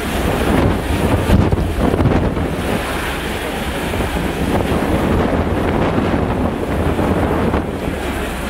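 Wind blowing across the camera microphone, a loud, uneven rumble that swells a little now and then.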